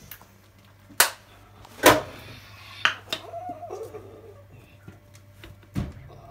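Sharp clicks and knocks of condiment bottles and a knife being handled on a kitchen counter while a sandwich is made, the loudest about two seconds in, with a brief wavering tone in the middle.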